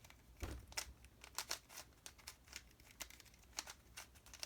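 Plastic twisty puzzle being turned by hand: a quick, irregular run of faint clicks and clacks as the layers snap round.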